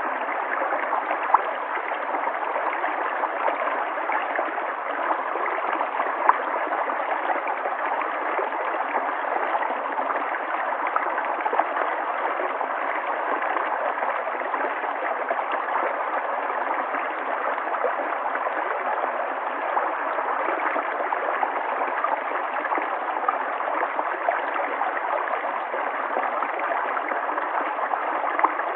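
River water flowing and gurgling steadily, with an occasional brief splash or plop.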